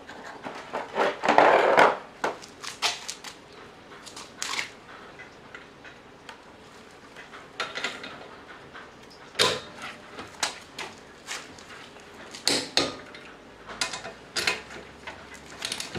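Scattered metallic clicks and clanks of hand tools and sockets being handled at a car wheel's lug nuts, with one short, louder rasping noise about a second and a half in. Near the end come further clicks as the lug nuts are tightened with a torque wrench.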